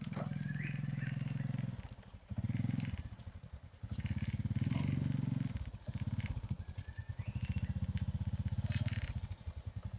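Small step-through motorbike engine running at low speed with an even pulsing beat, its sound dropping away briefly three times as the rider slows and pulls up. A few short high chirps sound over it.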